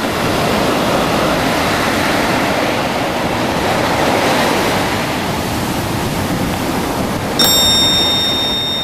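Ocean surf washing up onto a sandy beach, a steady rushing wash. About seven seconds in, a bright, high chime strikes once and keeps ringing.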